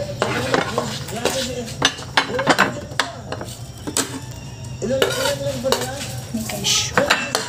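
Plates and glass bowls clinking and knocking on a table as dishes of food are picked up and moved about, a string of short irregular clinks and knocks.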